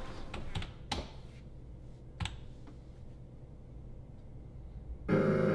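A few sharp, isolated clicks and taps over quiet room tone, the strongest about a second in and another a second later, like handling at a computer keyboard and desk. Near the end, sustained background music comes in abruptly.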